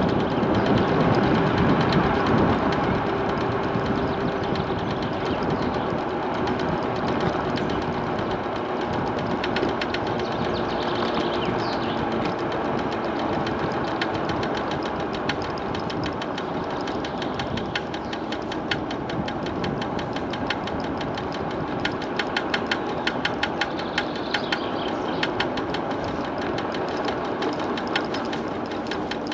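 MiniPro Mi716 electric scooter riding along, with steady road and wind noise and a faint hum. From about halfway on, a rapid repeated knocking from the front wheel comes in, densest near the end: a fault in the front wheel, which the rider suspects is something with the wheel.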